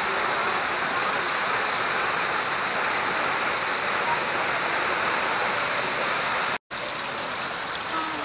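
Waterfalls rushing: a steady, dense hiss of falling water. It cuts off abruptly a little over six seconds in, and a quieter, steady sound of moving water follows.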